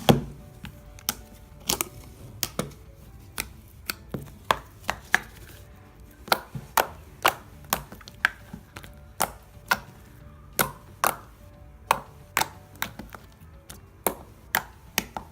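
Slime being pressed and worked by hand, making sharp clicks and pops about twice a second in an uneven rhythm.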